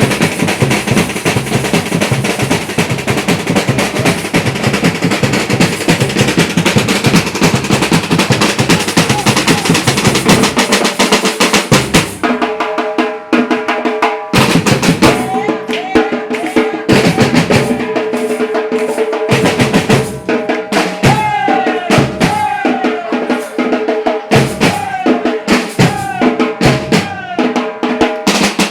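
Samba batucada drumming by a percussion ensemble, dense and fast. About twelve seconds in, the deep bass drums mostly drop out, leaving the higher drums, with sliding pitched tones over them in the second half.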